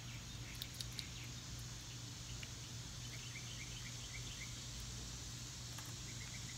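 Faint outdoor background: a steady low hum with a small bird chirping in quick runs of short high notes, about three seconds in and again near the end. A few soft clicks in the first second.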